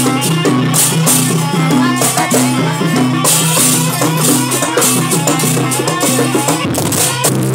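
Live jaranan gamelan accompaniment in a fast sampak rhythm, played loud over loudspeakers: steady beating drums with rattling, jingling percussion over sustained low tones. The playing shifts near the end.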